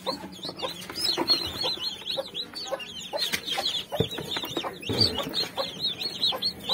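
A brood of newly hatched chicks peeping continuously, many short high cheeps a second overlapping, with lower clucking beneath. A couple of soft knocks sound about four and five seconds in.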